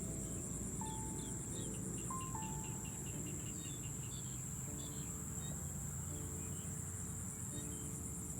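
Insects in a rice field trilling steadily at a high pitch, with a run of short, quickly repeated chirps and a few brief whistled notes over it in the first half.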